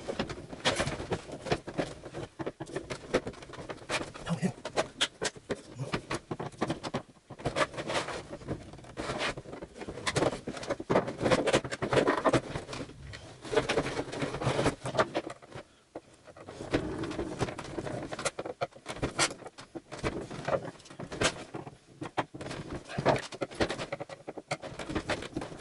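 A large screwdriver prying and scraping at a sealed molded plastic housing: a long run of irregular clicks, knocks and scrapes as the seam is forced.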